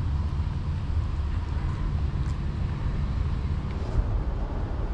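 Steady low outdoor rumble with no other clear sound.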